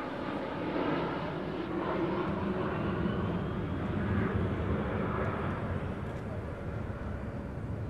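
The Antonov An-178's twin turbofan jet engines are heard from the ground as a steady rumble and hiss while the aircraft banks away overhead. The noise swells a little in the middle, with a faint high whine, and then eases as the aircraft moves off.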